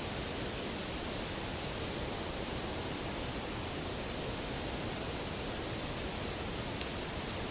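Steady, even hiss of background noise with no calls or knocks in it; one faint tick near the end.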